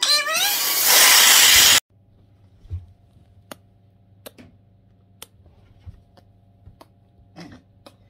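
Helium hissing from a disposable tank's nozzle into a foil balloon for almost two seconds, cutting off abruptly. After that, only a low hum with a few faint clicks.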